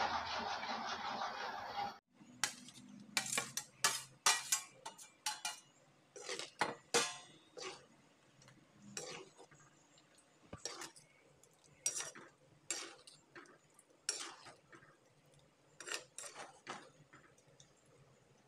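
A spoon stirring and scraping in a clay pot of thick gravy, making irregular sharp clinks and knocks against the pot. Before this, about two seconds of steady noise cut off suddenly.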